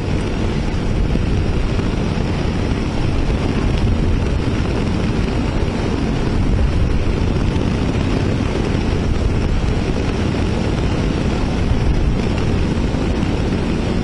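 Motorcycle engine running at a steady cruise of about 55 km/h, with a constant rush of wind over the rider's helmet.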